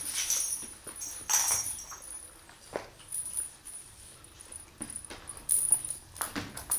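Kittens scampering on a hard floor and batting a plastic toy ball about, with scattered light taps, knocks and brief scuffles of paws.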